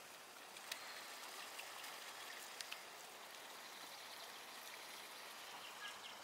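Faint steady rush of flowing water, like a small mountain stream, with a few faint clicks.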